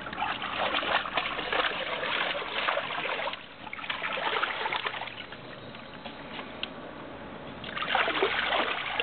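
Water splashing and sloshing in a plastic paddling pool as terriers wade and drink in it, busiest for the first few seconds and again near the end, with a quieter stretch in between.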